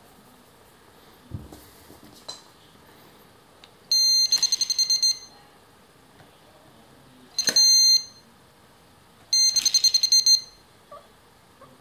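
New Direction carp fishing bite alarm sounding three times with a high electronic tone, signalling line movement over its roller. The first and last bursts last about a second and warble rapidly; the middle one is a short steady beep. A couple of faint clicks come before the first tone.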